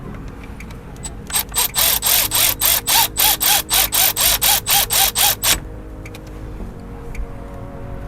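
Ratchet wrench clicking in a quick, even run, about four strokes a second, starting about a second in and stopping a few seconds later, as it drives a bolt home.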